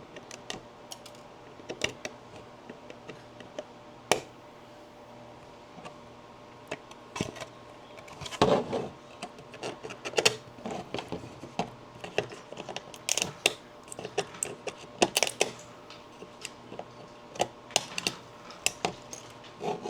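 Irregular sharp clicks, snaps and cracks of 3D-printed plastic tree supports being pried and broken off a printed part, with a busy cluster about eight seconds in and more a few seconds later. A faint steady hum runs underneath.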